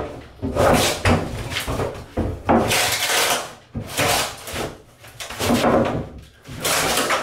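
Fiberglass shower pan being lifted and tipped up out of the stall, scraping and knocking against the walls and floor in a string of irregular bursts.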